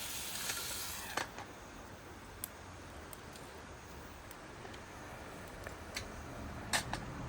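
Food sizzling in a frying pan on a wood-burning camp stove. The sizzle cuts off with a click about a second in, and a few scattered sharp clicks and ticks follow.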